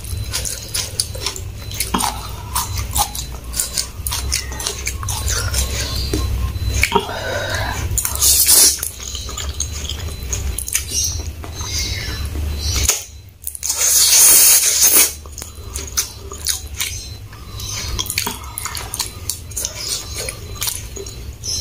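Close-miked eating of fried instant noodles: wet chewing and slurping of noodles off a fork, with small clicks of the metal fork against a ceramic bowl. The loudest sound is a long hissing slurp about two-thirds of the way in.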